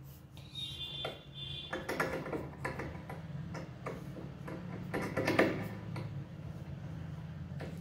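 Pencil scratching and ticking against drawing paper in short, irregular strokes while lettering and drawing lines, over a steady low hum.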